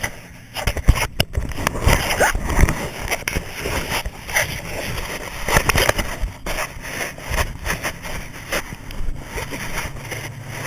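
Handling noise on a GoPro camera: a hand rubbing, scraping and knocking on the housing close to the microphone, in irregular clicks and knocks, over a low steady hum.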